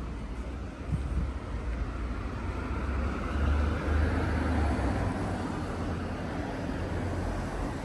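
Road vehicle noise: a steady low rumble and hiss of traffic, swelling a few seconds in and easing off again.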